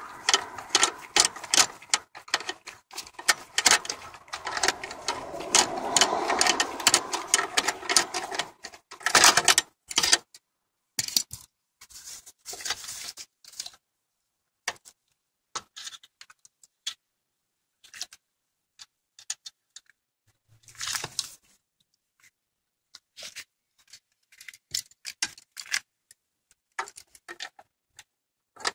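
Ratchet wrench clicking quickly for about nine seconds, then scattered clicks and metal clinks of hand tools and parts being handled.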